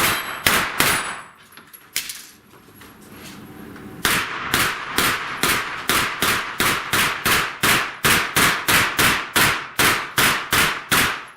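Rapid gunfire on a steel plates course: a few quick shots, a short lull with a single shot, then a long even string of about three shots a second that stops just before the end.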